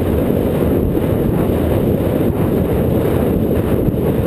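Wind buffeting the microphone of a camera mounted on a galloping horse: a loud, steady rush.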